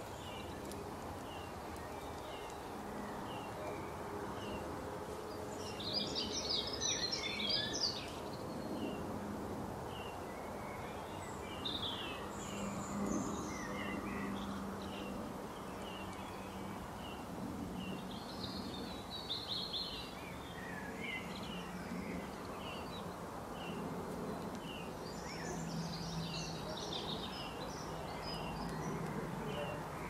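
Garden birdsong: a short high chirp repeated about once a second, with several bursts of busier twittering song, over a low steady background hum.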